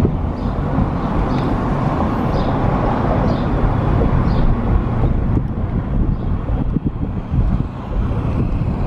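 Steady rumble of a moving vehicle with wind noise, and a faint tick about once a second.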